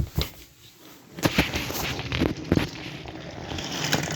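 Wooden toy train cars and track pieces knocking and clacking together, with several sharp clacks and a light rattle in between as the toy trains are handled and rolled.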